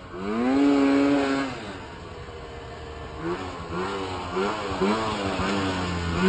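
Snowmobile engine revving: one long rise and fall in pitch near the start, then a run of short throttle blips.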